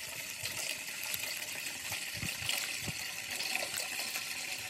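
Steady rush of running water, with a few soft low thumps about two and three seconds in.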